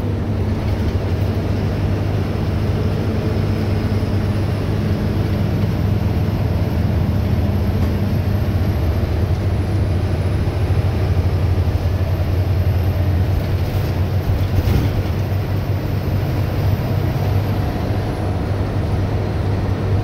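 Ashok Leyland school bus's engine running in a steady low drone while the bus drives along, with road noise, heard inside the cabin. There is one brief click about fifteen seconds in.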